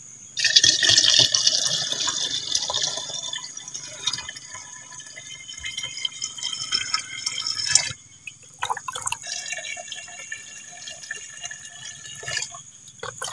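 Water poured through a funnel into a large plastic water jug, topping up the liquid fertilizer mix inside. The pour is strongest at the start, breaks off briefly about eight seconds in, then goes on.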